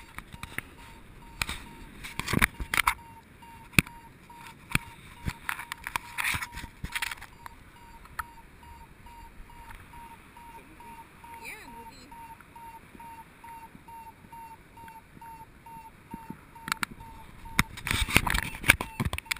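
Paragliding variometer beeping in short, evenly spaced high pips, about three a second, the sound it makes when the glider is climbing in lift. The beeping stops about two seconds before the end. Throughout there are knocks and wind buffeting on the microphone, with heavy gusts near the end.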